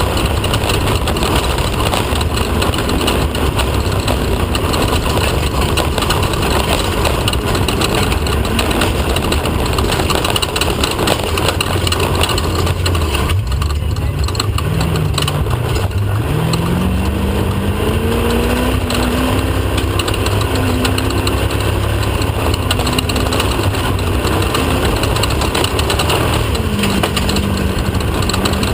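Off-road race car engine running hard at speed over rough desert terrain, heard from on board amid constant rattle and road noise. About halfway through the engine eases off briefly, then its pitch climbs steadily as it revs back up.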